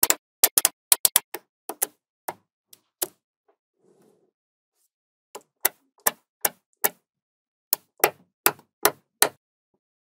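Small neodymium magnetic balls clicking sharply as they snap onto one another. About twenty clicks: a quick run in the first three seconds, a pause of about two seconds, then more evenly spaced clicks until near the end.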